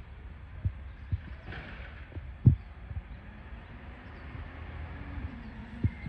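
Irregular low thumps against the microphone, the loudest about two and a half seconds in, over the faint running of an approaching garbage truck's engine.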